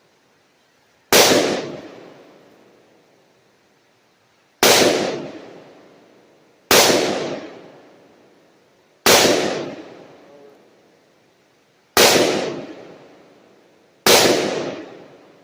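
Six single gunshots fired at targets, spaced irregularly about two to three seconds apart. Each shot is a sharp crack with a long echo that fades away.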